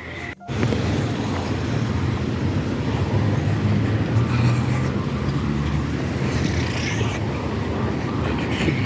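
Wind buffeting a handheld phone's microphone while running, a steady low rumble that starts about half a second in.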